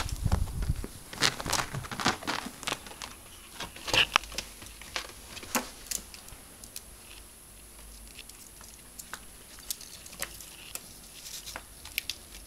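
Ferrets scrabbling and pattering about on bedding, with light scratches and rustling of fabric. Busiest in the first half, then scattered scratches. A muffled bump at the very start.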